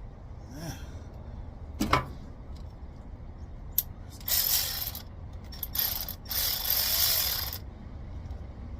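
Ratchet wrench working on a coil's fastenings, with a sharp click about two seconds in, then three runs of ratcheting between about four and seven and a half seconds in.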